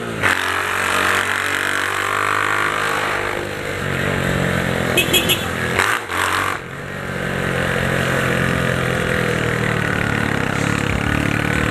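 Honda CG 150 Titan's single-cylinder four-stroke engine through a straight-through exhaust pipe, running under way, its note rising and falling with the throttle. A quick run of sharp ticks about five seconds in, then the engine briefly drops off and comes back up.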